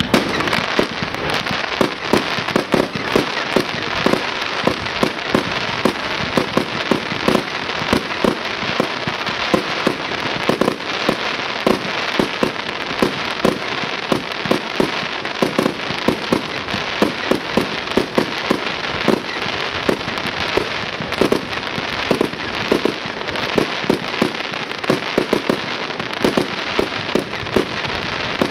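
Aerial fireworks bursting in a continuous barrage: dense crackling with many sharp pops and bangs every second.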